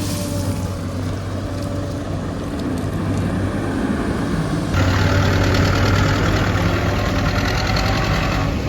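SANY excavator's diesel engine running steadily with a deep hum. A little under halfway through it turns suddenly louder, with a higher-pitched whine added, as the machine works under load.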